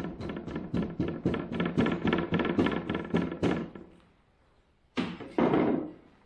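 Sand rammer pounding molding sand into a wooden foundry flask in rapid strokes, about six or seven a second, stopping about three and a half seconds in. Then a single knock and a short, louder clatter near the end.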